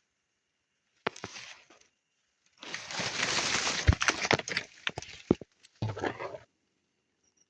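Bursts of rustling and crackling with sharp snaps, three stretches broken by silence, the longest in the middle.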